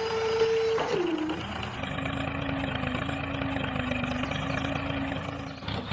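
Small electric motor of a miniature model tractor whining at a steady pitch. About a second in the pitch drops, and the motor then runs steady at the lower pitch.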